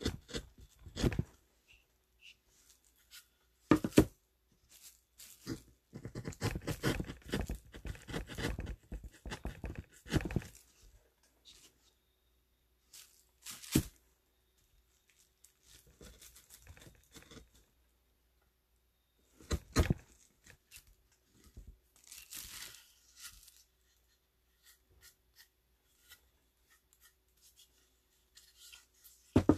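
Close handling noise: crinkling and rustling of a sheet and clothing against the microphone, coming in irregular bursts with a few sharp knocks, the densest stretch about six to ten seconds in.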